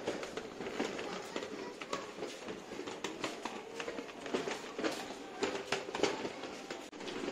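Street bustle: footsteps and small knocks and clatter repeating throughout, over a murmur of voices from people nearby.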